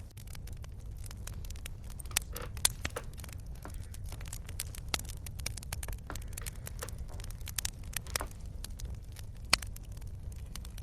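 Wood fire crackling: irregular sharp pops and snaps over a steady low rumble, with two louder pops, one about three seconds in and one near the end.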